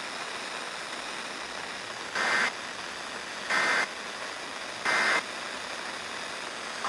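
EAS end-of-message signal on a weather radio: three short bursts of two-tone digital data, about 1.3 s apart, over steady radio static hiss, marking the end of the severe thunderstorm warning.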